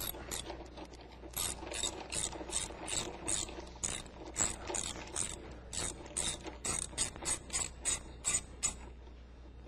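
Hand socket ratchet on a long extension clicking in quick runs, several clicks a second, as it is swung back and forth to back out the seatbelt retaining-bracket bolt. The clicking stops near the end.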